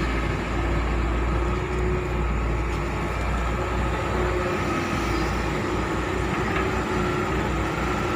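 Heavy excavator's diesel engine running steadily, a deep, constant drone.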